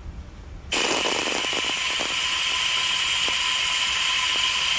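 Valve-job vacuum tester switched on about a second in and running with a steady, loud hiss, with a few clicks just after it starts, as it pulls vacuum on a cylinder-head port to check that the valve seals.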